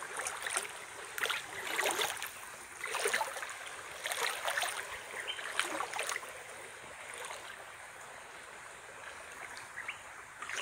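Footsteps wading through a shallow stream: water splashing and sloshing with each step, about once a second, over a steady light rush of flowing water. The steps ease off for a couple of seconds near the end.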